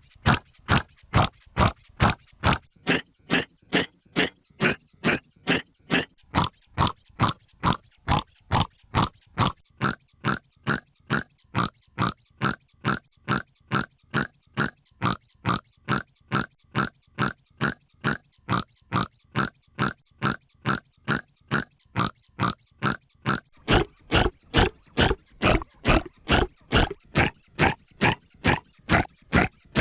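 A hiccup sound effect looped about twice a second, run through editing effects that shift its pitch and tone. About three-quarters of the way through, the hiccups turn fuller and deeper.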